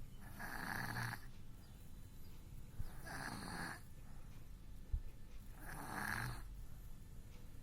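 A sleeping baby snoring: three rasping, noisy breaths, each under a second, coming about every three seconds. There is one short bump about halfway through.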